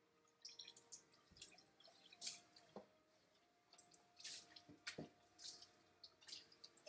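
Faint, irregular drips and short splashes of water into a tub, from a wet standard poodle's coat being squeezed out by hand after a rinse.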